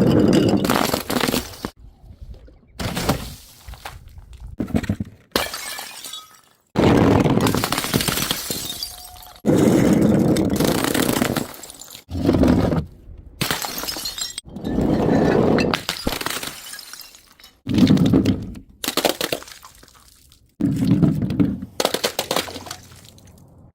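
Glass bottles smashing one after another, about a dozen times. Each is a sudden crash followed by a second or two of shattering and falling shards.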